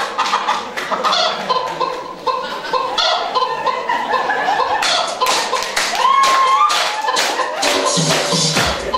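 Spanish-style dance music playing, joined about five seconds in by a crowd clapping along in a steady beat, about three claps a second.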